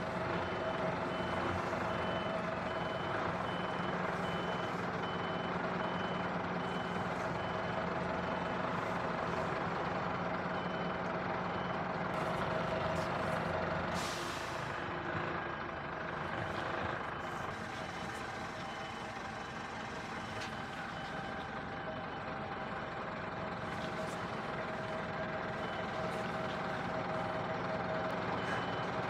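Articulated lorry reversing: the diesel engine runs steadily while the reversing alarm beeps in an even rhythm, at the start and again near the end. About halfway there is a short hiss of released air, typical of the truck's air brakes.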